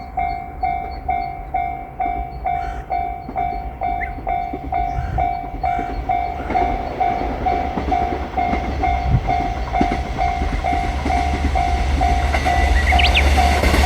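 Japanese level-crossing alarm bell ringing its even electronic ding, a little over two strokes a second, while a diesel railcar approaches. The railcar's low engine and wheel rumble grows steadily louder toward the end.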